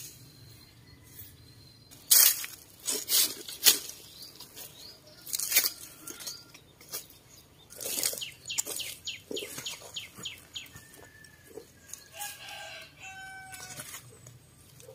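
A half coconut shell scoops and scrapes through crumbly compost in a plastic bucket, with irregular rustles and knocks, the loudest of them near the start. Birds call in the background near the end.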